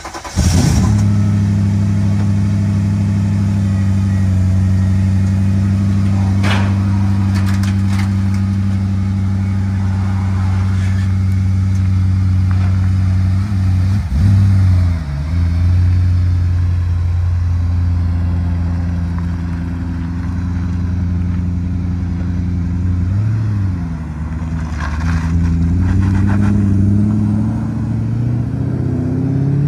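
BMW drift car's engine idling steadily just after starting, wavering and dipping about halfway through as the car is driven down off its trailer, then revs rising near the end as it pulls away. A few short sharp knocks sound along the way.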